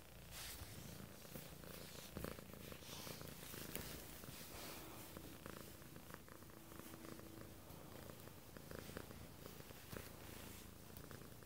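Domestic cat purring steadily, close up, as it is stroked.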